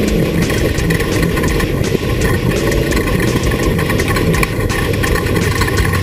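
Off-road race vehicle's engine running, with frequent clicks and rattles over it. About five seconds in a steadier low engine hum sets in.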